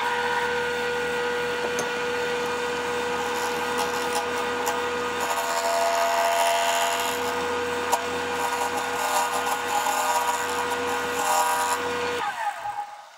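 Wood lathe switched on, its motor humming steadily while a turning gouge cuts into a spinning heart-shaped cherry blank with a hissing, scraping noise. About 12 seconds in the lathe is switched off and winds down.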